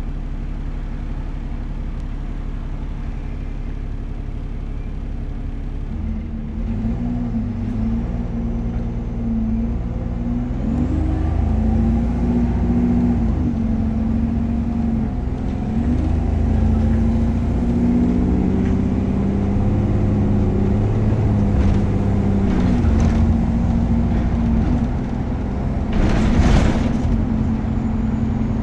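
Optare Versa single-deck bus engine idling steadily, then pulling away about six seconds in, its note rising and falling repeatedly as it accelerates and changes gear. A short hiss comes near the end.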